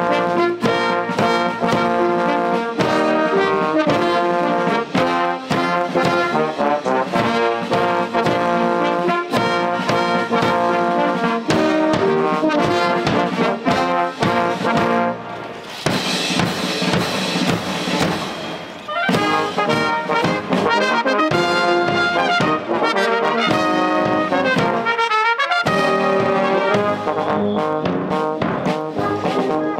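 Military band playing with the brass to the fore, a run of changing notes. About halfway through, the notes give way for around three seconds to a noisy wash, and then the band plays on.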